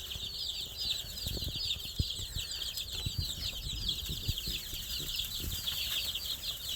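A group of baby chicks peeping: a dense, steady chorus of short, high, falling cheeps, with a few faint low thumps underneath.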